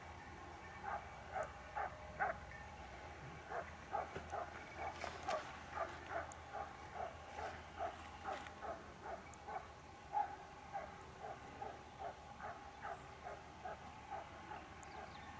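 Hunting dogs barking continuously on a wild boar hunt: a steady run of short barks, about three a second.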